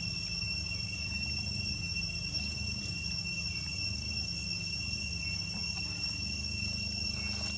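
Steady high-pitched insect drone, crickets or similar, holding one unchanging pitch over a low rumble.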